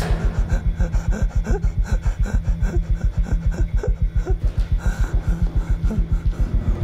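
Film sound design: a fast, steady low pulse, about eight beats a second, with a man's heavy panting breaths over it.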